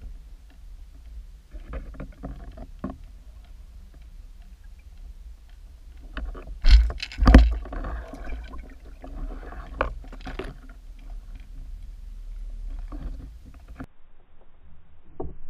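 Lures being pulled past an underwater camera: a steady low rumble of water moving over the housing, with scattered clicks and rattles. About seven seconds in come two loud thumps close together, then a few seconds of rushing, splashy noise.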